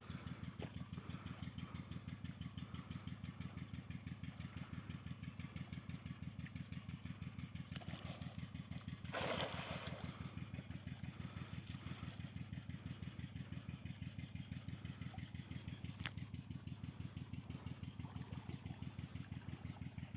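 A small engine idling, a steady rapid low pulsing, with a brief hiss about halfway through.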